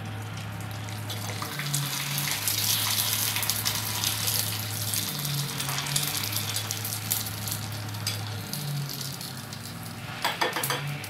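Sooji (semolina) papad frying in hot oil, with a steady sizzling, crackling hiss as it puffs up, and a few sharper crackles near the end.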